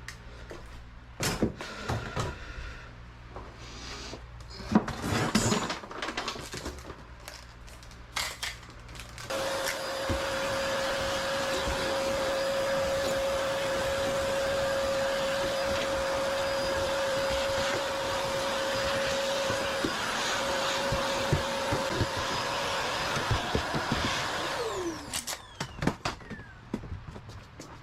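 Scattered knocks and clicks, then an electric motor runs steadily with a constant hum for about fifteen seconds and winds down with a falling pitch when switched off, followed by a few more knocks.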